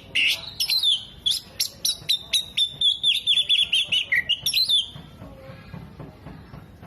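Oriental magpie-robin singing: a fast run of loud, sharp chirps and whistled notes, with a quick warbling trill about three seconds in, breaking off about five seconds in.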